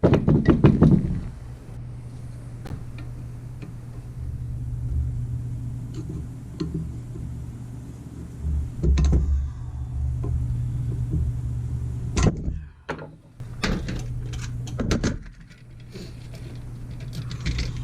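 Occasional metal knocks and clinks of hand tools working on a rust-seized cast-iron arbor press, over a steady low hum.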